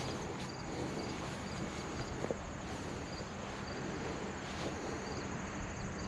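Insects chirping steadily, a fast high trill with repeated short chirps, over a steady low engine hum.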